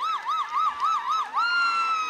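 A high siren-like wail that rises and falls quickly, about seven times a second, then settles into one long held tone that sinks slightly near the end.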